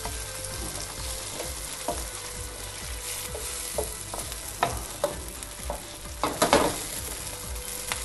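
Chicken pieces, onions and tomatoes sizzling in oil in a metal pan, with a steady hiss. A wooden spoon stirs and scrapes through them, knocking against the pan now and then, with the loudest knocks a little past six seconds in.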